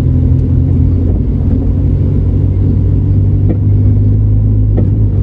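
Steady low rumble of a car's engine and tyres heard from inside the cabin while it is driven along a street.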